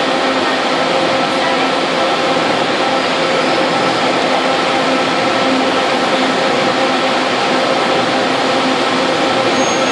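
Steady droning hum of an idling city bus, with a few unchanging tones running through it.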